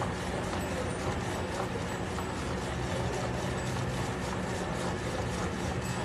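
Hand milking a cow: streams of milk squirting in a quick, regular rhythm into a part-full steel bucket. A steady low mechanical drone, like an engine running, goes on underneath.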